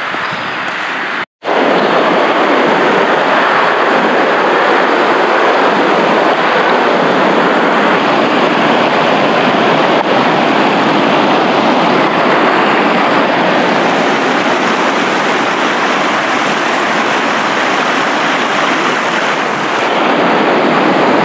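Fast-flowing mountain river rushing over rocks close by, a steady loud rush of water, swollen with high water. It cuts out for a moment about a second in.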